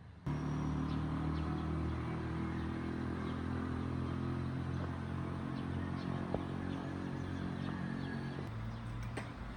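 Motor vehicle engine running at a steady pace, a low even hum that starts abruptly about a third of a second in.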